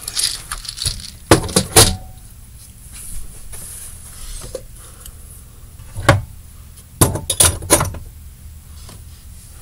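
Slime supplies being handled and set down: clusters of sharp clinks and knocks, a few about a second in and more around six to eight seconds in.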